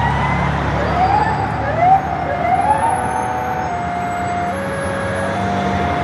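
Emergency vehicle sirens over a steady low city traffic rumble. Repeated rising-and-falling siren sweeps fill the first three seconds, then give way to a sustained siren that alternates between two pitches.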